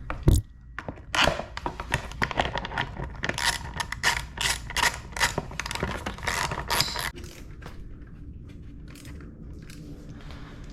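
Quick sharp clicks and scrapes of hand tools and plastic parts as the motorcycle's headlight surround is refitted, for about seven seconds; after that only a faint steady hum remains.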